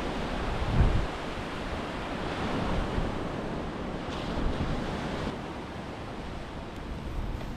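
Ocean surf washing steadily onto the beach, with wind buffeting the microphone in low rumbling gusts, strongest just under a second in.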